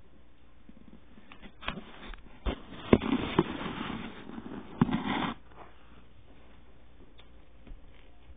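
Handling noise from a camera being moved and set down on a wooden floor: several sharp knocks, then about two seconds of close rustling against the microphone ending in a last knock.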